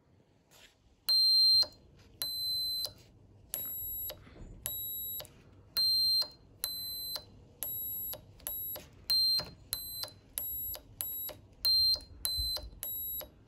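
A small electronic buzzer on a breadboard circuit beeps about sixteen times in quick succession, one short beep for each push-button press. The pitch is steady and high, and the beeps come at clearly different loudnesses depending on the button pressed: one button feeds the buzzer directly, one through two 330 ohm resistors, and one through a 10,000 ohm resistor.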